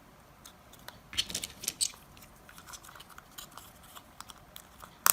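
Small plastic parts of a Nokia 6150's front panel being handled and fitted together: scattered light clicks and taps, busiest between one and two seconds in, then fainter ticks, with one sharp click near the end.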